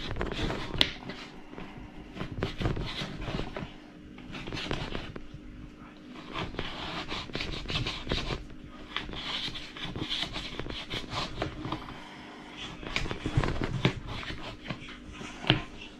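Kitchen knife sawing through a slab of raw pork fat (salo) on a cutting board: irregular scraping strokes of the blade, with sharp knocks where it meets the board.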